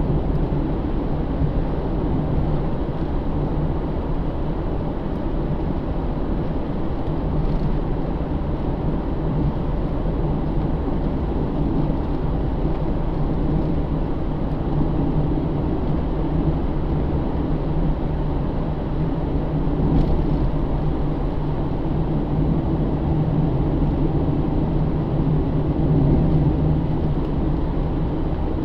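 In-cabin sound of a 2009 Pontiac G8 GT's 6.0-litre V8 cruising: a steady low drone of engine and tyre noise.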